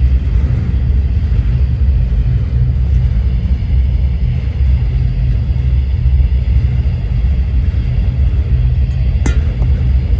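Roofing torch burning steadily with a loud, even low rumble, heating roofing material for a patch. A single sharp click sounds about nine seconds in.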